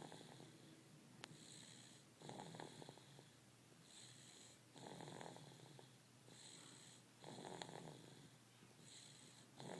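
Faint, steady snoring at about one breath every two and a half seconds. Each breath is a rasping snore, with a thin whistling hiss in between.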